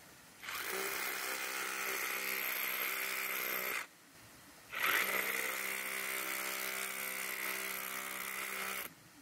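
Waitley YN-5026 18 V cordless SDS hammer drill hammering a flat cold chisel into a hard rock outcrop. It runs in two bursts, about three seconds and then about four seconds, with a brief pause between.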